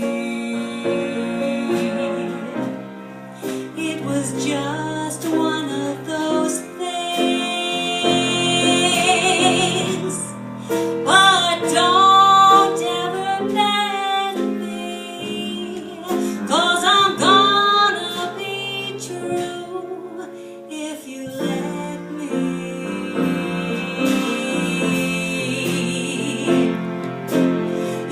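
A woman singing a slow jazz standard over instrumental accompaniment, holding long notes with vibrato.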